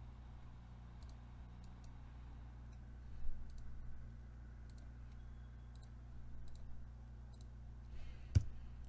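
Computer mouse clicking now and then, faint sharp clicks over a steady low hum, with one louder click near the end.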